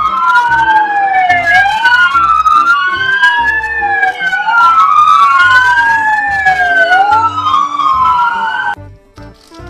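Police-car siren wailing: two tones rise and fall in slow, opposite sweeps that keep crossing each other, then cut off abruptly about a second before the end.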